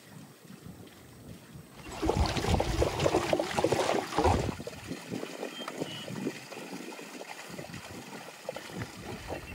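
Spring water gushing up from a metal pipe and splashing over into a stone basin. It turns much louder about two seconds in for a couple of seconds, then settles back to a steady wash.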